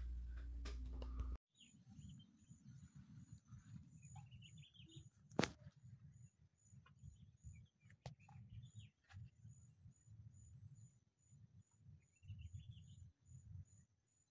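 Faint outdoor ambience on a phone recording: an uneven low rumble on the microphone with a few short bird chirps, a sharp click about five seconds in, and a faint steady high whine.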